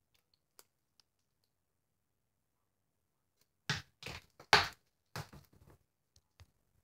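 Near silence with two faint clicks, then a cluster of knocks and rustling clatter, loudest about halfway through: objects being handled and set down at a bathroom sink.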